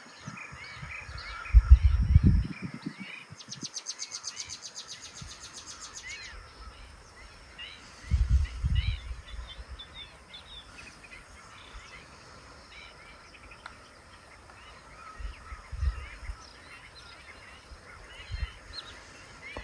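Birds calling, many short calls overlapping, with a fast high rattling trill lasting about three seconds a few seconds in. A few low thumps break in, the loudest about two seconds in.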